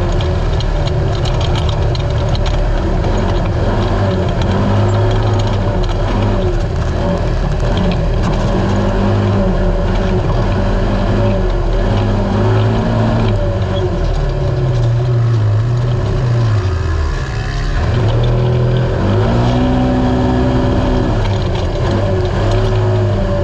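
Naturally aspirated race UTV engine running hard, its revs rising and falling with the throttle. About seventeen seconds in, the revs drop sharply and briefly, then climb back up.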